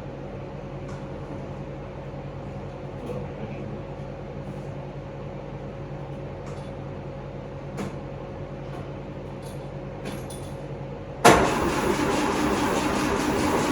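A steady low hum with a few faint clicks, then about eleven seconds in the starter motor suddenly cranks the 1939 Austin 12's four-cylinder engine over loudly, without it catching, as the mechanic tries to find why the car won't start.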